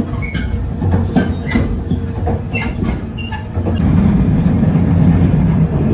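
A JR West 287 series electric train running along the line: a steady low rumble with repeated clacks from the wheels over the rails. The rumble grows louder about four seconds in.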